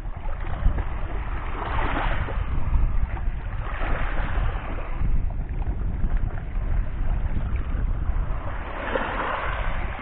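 Small waves washing up onto a pebble beach, the hiss of each wave swelling and fading three times: about two seconds in, around four seconds in, and near the end. A steady low wind rumble on the microphone runs underneath.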